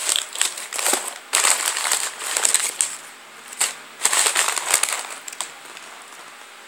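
Crinkling and rustling of blind-bag packaging being handled, in three or so bursts that die down near the end.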